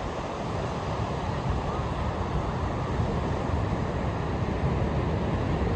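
Ocean surf washing in a steady rush, with wind rumbling on the microphone, building slightly in loudness.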